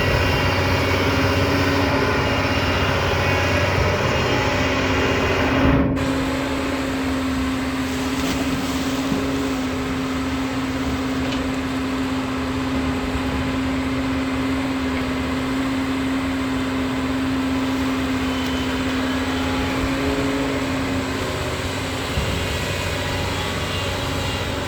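Doosan long-arm excavator's diesel engine running steadily with a steady hum, and a brief break about six seconds in.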